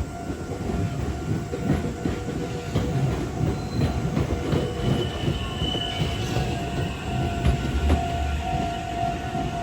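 Meitetsu Inuyama Line train passing over a level crossing, its wheels knocking over rail joints with a low rumble and a short wheel squeal about halfway through. The crossing's warning bell rings steadily underneath.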